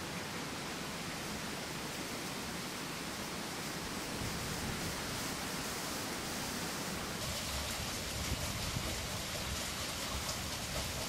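Water rushing and splashing steadily through a turning welded-steel overshot water wheel, its buckets filling and spilling, with the sound growing fuller from about seven seconds in.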